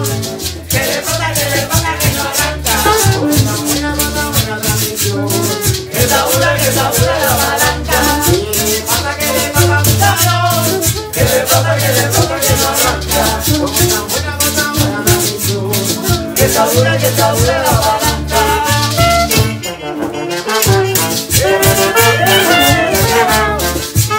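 A cumbia band playing live: a metal güiro scraped in a fast, steady rhythm over a pulsing bass line and trombone.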